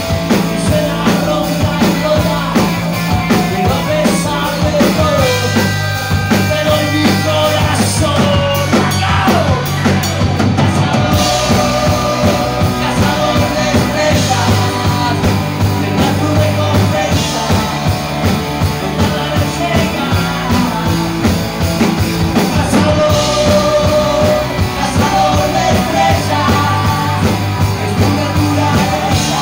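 Loud live rock band playing: electric guitars, a steady bass line and a drum kit, with a singer's voice over them.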